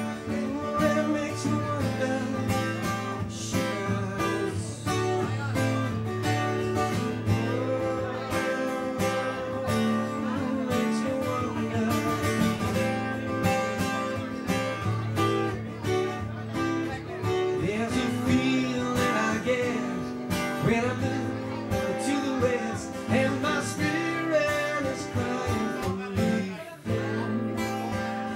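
Live acoustic guitar picked with the fingers, with a man singing over it into a microphone.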